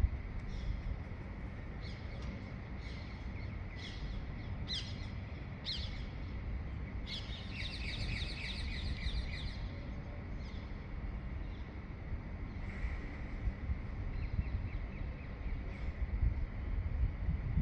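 Songbirds chirping: scattered short high calls, with a rapid twittering run about seven to nine and a half seconds in. A steady low rumble runs underneath.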